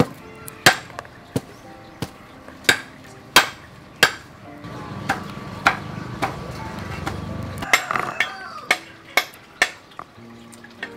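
Fresh lotus seeds being split open by hand to remove the green germ: a series of sharp, irregular snapping clicks, one or two a second, with a low muffled rustle in the middle.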